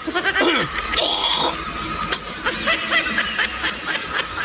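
A person snickering and giggling in many short bursts, with a brief hiss about a second in.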